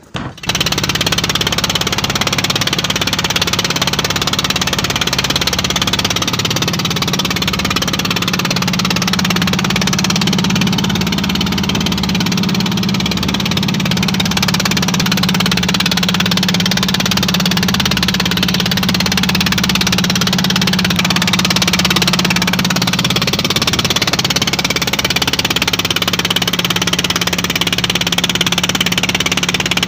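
Small outrigger fishing boat's engine running steadily underway, a constant loud drone that cuts in suddenly about half a second in.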